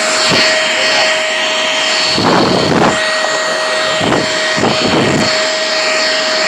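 Corded stick vacuum cleaner (elezon F800, 500 W) running with a steady high whine, broken by three louder rushes of noise about two, four and five seconds in.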